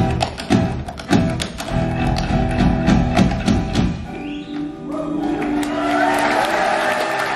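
Live band music from a stage show, with guitar and a strong percussive beat about twice a second. About four seconds in the beat stops and gives way to held notes, and audience applause starts to build near the end.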